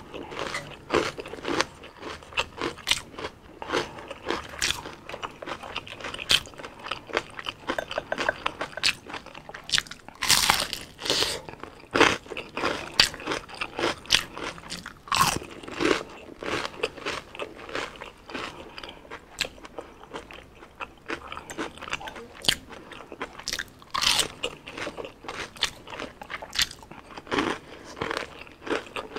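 A person chewing crispy deep-fried street food: a continuous run of irregular crunches and crackles as the food is bitten and chewed, with a few louder crunches along the way.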